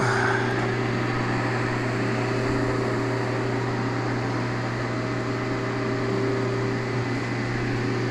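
Cutera laser system running, a steady hum of its fans and cooling unit with a low drone and a faint steady tone over it.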